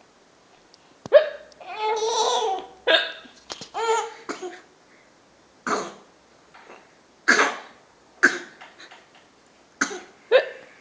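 A woman hiccupping repeatedly: short, sharp hiccups every second or two, about half a dozen in all. A young child laughs at them in the first few seconds.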